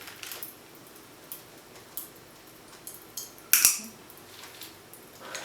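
Small handling noises from candy packaging: scattered light clicks and crinkles, with one louder, sharp crinkle about three and a half seconds in.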